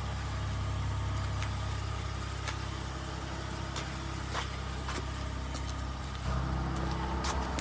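A 2002 Acura MDX's 3.5-litre V6 idles steadily through a freshly fitted flex pipe and catalytic converter, with no exhaust leak. The idle gets slightly louder about six seconds in.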